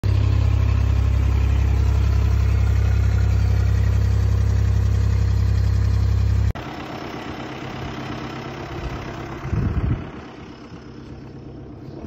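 Vehicle engine running at idle, a loud steady low hum that cuts off abruptly about six and a half seconds in. After it comes quieter open-air sound with a brief low rumble about ten seconds in.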